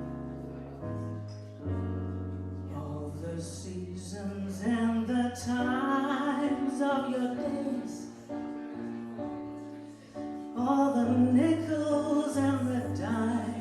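Slow ballad music: a sung melody over sustained low accompaniment notes, with the melody dropping out for a few seconds in the middle.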